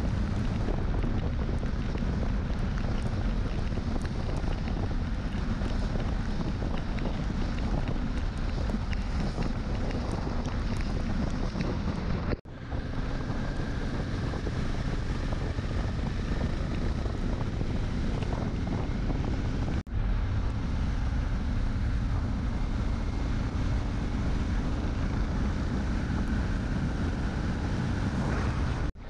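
Wind buffeting a motorcycle-mounted camera's microphone at road speed, a steady low rush with the bike's running noise underneath. It drops out for an instant twice, about twelve and twenty seconds in.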